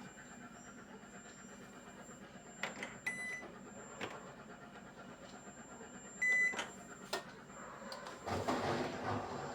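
Hisense front-loading washing machine control panel: a few sharp clicks and two short high beeps as options are selected, the second beep louder. About eight seconds in, the machine starts up and a louder, steady noisy running sound begins.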